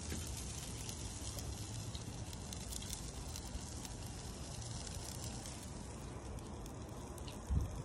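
Meat and shrimp sizzling and crackling on a grill over charcoal, an even hiss with fine pops and a low rumble underneath. A single short thump comes near the end.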